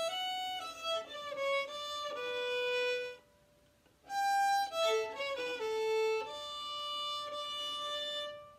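Fiddle bowing a short run of notes from a fiddle tune, breaking off about three seconds in, then playing a second phrase that ends on a long held note.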